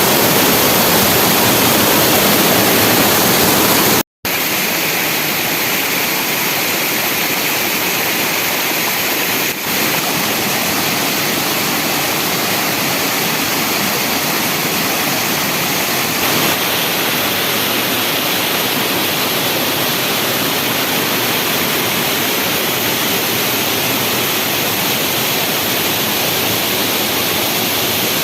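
Waterfall: a steady, loud rush of falling and splashing water, cutting out for an instant about four seconds in.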